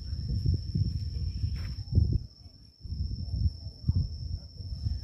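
Steady high-pitched insect drone over a gusty low rumble that briefly drops away about two and a half seconds in.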